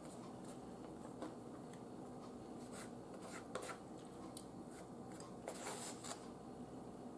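Metal fork scraping and clicking on a plate as food is cut and picked up: a few short clicks, then a longer scrape near the end.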